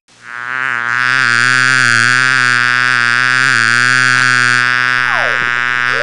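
Cartoon bee buzzing sound effect: a steady, low, reedy buzz rich in overtones that swells in over the first second and then holds. A quick swooping glide, down then up, comes near the end.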